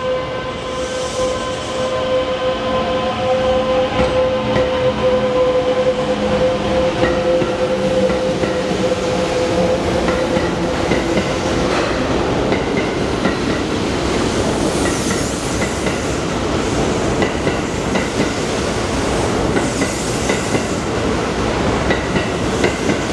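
Kintetsu limited express train (22000, 12200 and 12400 series cars coupled) pulling away from a platform. A steady tone fades out about ten seconds in, and a motor whine rises in pitch early on as it accelerates. Wheels clack over rail joints as the cars roll past.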